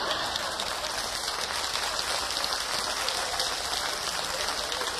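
Audience applauding steadily after a sung punchline.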